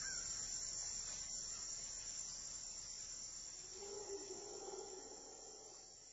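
Steady high-pitched chorus of crickets that fades out gradually. A soft low sustained tone sounds briefly about four seconds in.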